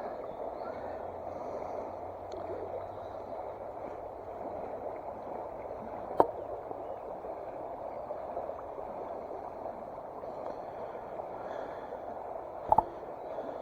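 Steady rush of running stream water, with two sharp clicks: one about six seconds in and one near the end.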